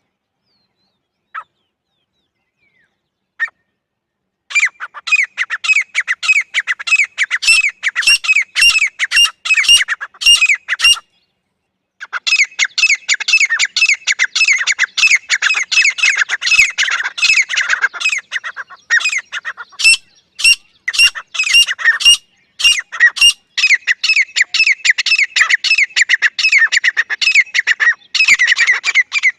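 Grey francolin calling: two short single notes, then from about four seconds in a fast run of loud, harsh repeated notes, each dropping in pitch, with a pause of about a second near the middle.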